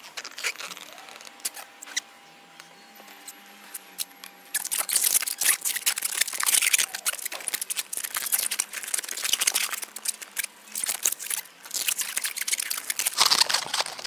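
A long latex modelling balloon being blown up by mouth, then twisted into a balloon dog. The twisting gives a dense run of squeaks and rubbing that starts about four seconds in and goes on almost to the end.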